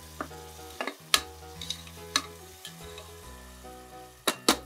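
A metal spatula stirring and scraping against an aluminium pressure cooker as potatoes, green peas and curd fry in it, with separate scrapes every second or so and a quick run of strokes near the end.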